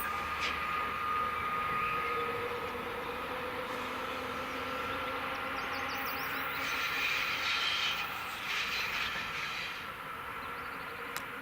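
A train rolling on the rails behind the steam locomotive 18 201, with a thin, faint squeal over the running noise of the wheels.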